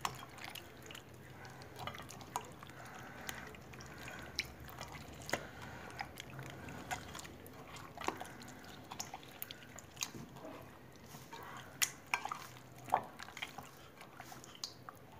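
Raw rohu fish pieces being turned by hand in lemon juice in a glass bowl: faint, irregular wet squishes and drips with small clicks.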